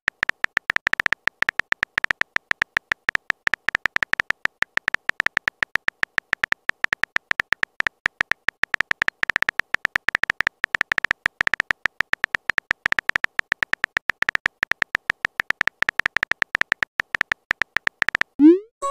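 Texting Story app's keyboard sound effect: a rapid run of synthetic typing clicks, each with a high ticking tone, as a message is typed out. Near the end the typing stops and a short tone rises in pitch.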